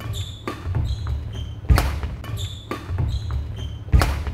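Badminton rally on a wooden court: rackets striking the shuttlecock, two sharp hits about two seconds apart, the second near the end. Between them come short squeaks of shoes and the thud of footsteps on the floor.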